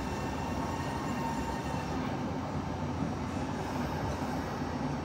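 Kintetsu electric train standing at a platform, its onboard equipment giving a steady hum with a faint whine.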